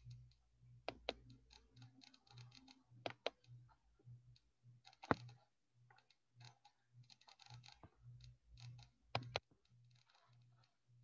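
Faint computer mouse clicks and keyboard taps, with sharper single clicks about one, three and five seconds in and a quick pair about nine seconds in, over a low hum that pulses a couple of times a second.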